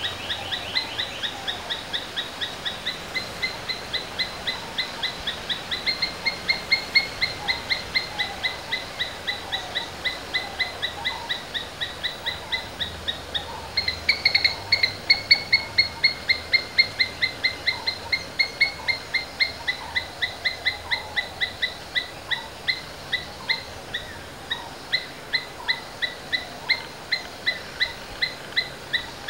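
Palm squirrel chirping: a steady run of short, sharp, high chirps, about three a second, without a break. The chirps get louder and slightly higher about halfway through.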